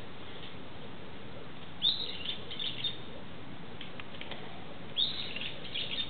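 Brown-eared bulbul calling: two phrases about three seconds apart, each a loud, sharp high note that drops in pitch, followed by a few shorter notes.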